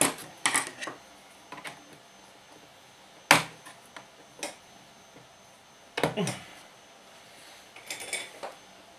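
Scattered sharp clicks and taps of a screwdriver and a small control knob being handled, with the loudest tap a little past three seconds in and a short rattle of clicks near the end.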